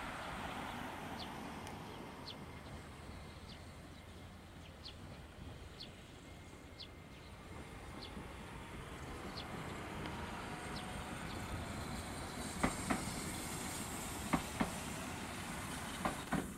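Hiroshima Electric Railway 5100-series Green Mover Max low-floor tram passing, with a steady running rumble; near the end its wheels knock over rail joints in pairs, three pairs in all. A faint high chirp repeats about once a second through the first two-thirds.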